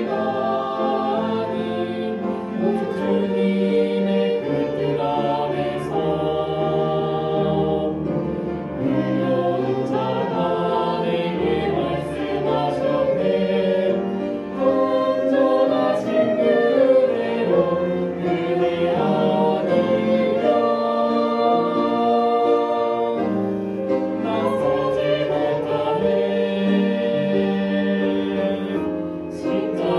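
A choir singing a slow gospel hymn with an orchestra accompanying it.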